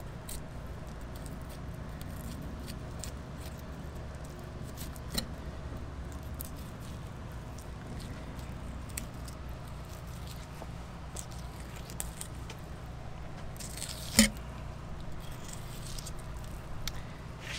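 Dexter 8-inch wide fillet knife slicing a mahi mahi fillet off along the backbone: faint scraping and small clicks, with one sharper click late on, over a steady low hum.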